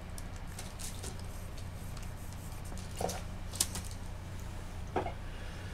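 Small clicks and taps of hand-held sculpting tools being handled and set down on a worktable, with three sharper knocks about three, three and a half and five seconds in, over a steady low hum.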